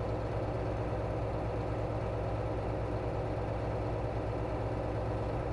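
John Deere 4755 tractor's six-cylinder diesel engine running steadily, heard from inside the cab.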